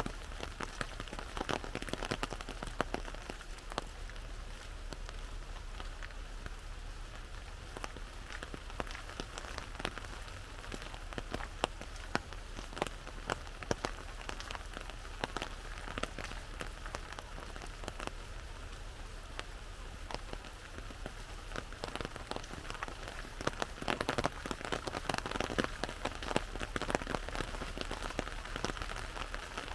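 Rain falling on an umbrella overhead: a steady, dense patter of individual drops striking the canopy, heavier for a few seconds near the end.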